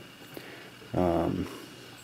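A brief wordless vocal sound from a man, like a drawn-out 'uhh', about a second in; otherwise quiet room tone.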